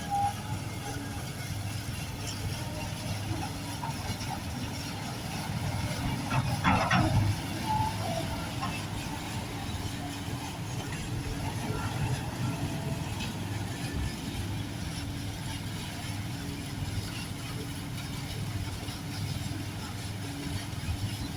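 Diesel engines of loader machinery running steadily, with a short louder burst of noise about seven seconds in.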